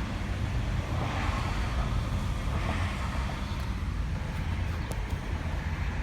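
Steady low rumble of an idling car engine, with a few faint clicks partway through.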